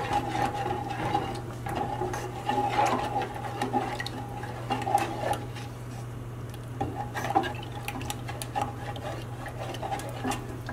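A wooden spatula stirring thick hibiscus syrup in an aluminium pot, with scattered scrapes and light knocks against the pot, while the added sugar dissolves as the syrup heats. A steady low hum runs underneath.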